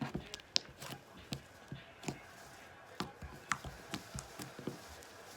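Slime, freshly softened with lotion, being squeezed and stretched by hand, giving off irregular small clicks and pops.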